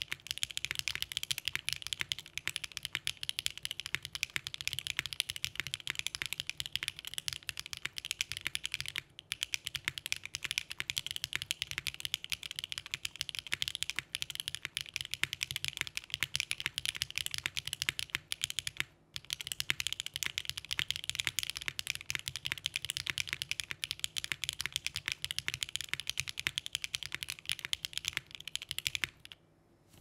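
Fast, continuous typing on an Adamas by RAE custom mechanical keyboard: stock V2u switches in an aluminium plate, gasket/top-mount, no foam, with GMK Serika ABS keycaps. A dense stream of keystroke clacks pauses briefly twice and stops shortly before the end.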